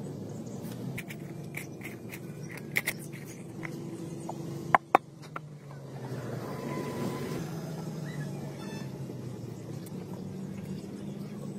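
A steady engine hum in the background, with a few sharp clicks through the middle, the two loudest close together about five seconds in.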